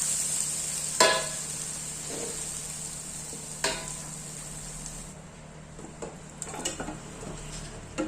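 Sautéed spice paste sizzling in oil in a pan and dying away once the stove is switched off, the sizzle gone about five seconds in. A spatula knocks against the pan about a second in and again just before four seconds, with a few lighter clicks near the end.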